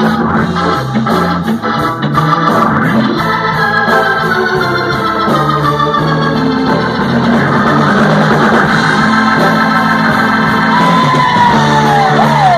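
Hammond organ taking the lead in a live band, held chords and runs over a steady bass line. A note slides down in pitch near the end.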